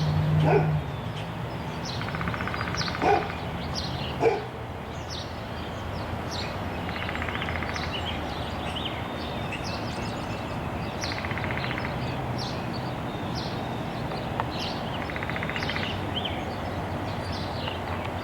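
Birds chirping, with a buzzy trill repeated about every four seconds, over a steady background hiss. There are a few soft knocks in the first few seconds.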